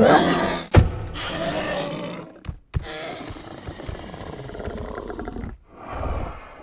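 Dinosaur roar and growl sound effects: a loud rough roar at the start, a sharp thud about a second in, then a lower rumbling growl, with a new roar swelling near the end.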